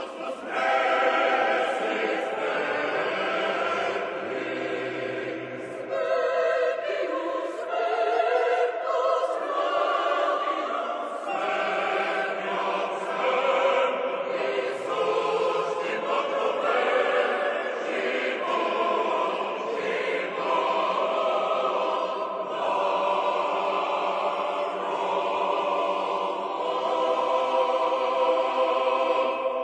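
A choir singing slow, sustained chords as theme music.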